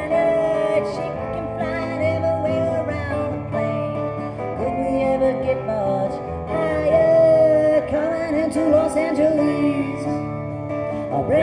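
Live acoustic country-folk music: a steel-string acoustic guitar strumming under a wavering lead melody line.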